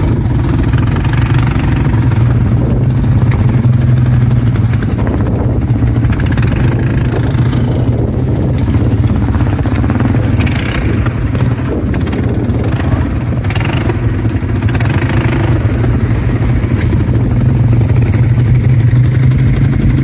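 ATV engine running steadily under way, with a cluster of brief clattering knocks in the middle stretch.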